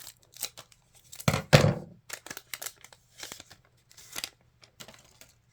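A Cardsmiths Series 4 Currency trading card pack wrapper being torn open and crinkled by hand: a run of irregular crackles and rips, loudest about one and a half seconds in.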